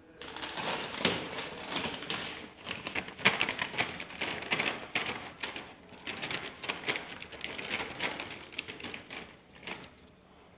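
Clear plastic bag crinkling and crackling as a plastic burette clamp is handled and unwrapped from it. The noise is irregular, with short lulls, and dies away just before the end.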